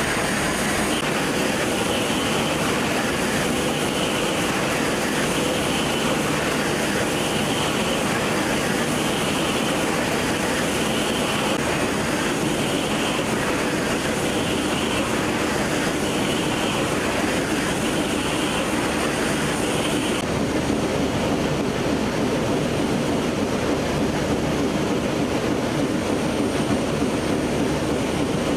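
Hanwei adult pants production line running at speed: a steady, dense mechanical drone of rollers and drives, with a faint regular pulse every second or two. The tone of the drone changes about twenty seconds in.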